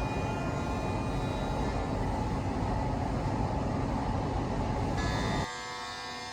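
HT-1830x2RBS CNC router running: a steady, loud machining noise with a deep rumble. About five seconds in it drops abruptly to a quieter, high, steady whine.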